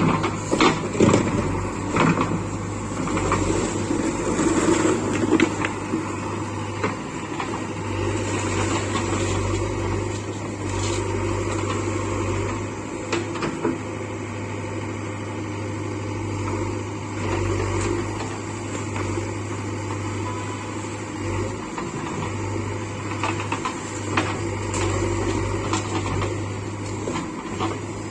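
JCB 3DX backhoe loader's diesel engine running steadily, with occasional knocks and clanks from the working machine, several close together near the start.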